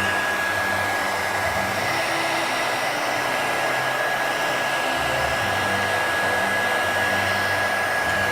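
Heat gun running steadily, a rush of blown air with a thin steady whine, softening the adhesive that holds a phone's front glass.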